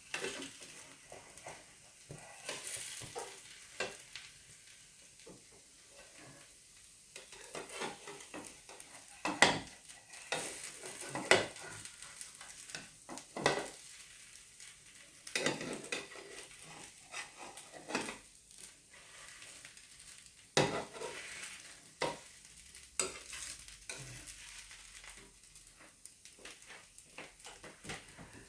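Spatula scraping and knocking against a kadhai at irregular intervals, over a faint sizzle of chakli pitha batter cooking in a little oil.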